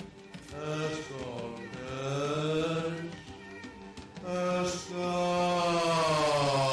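Wordless vocal chanting: long held notes with slow pitch glides, in phrases of a second or two, ending in one long sustained tone.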